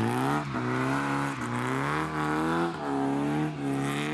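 Talbot Sunbeam Lotus rally car's 2.2-litre Lotus four-cylinder engine revving hard as the car accelerates away. The pitch climbs and falls back sharply several times with each lift or gear change.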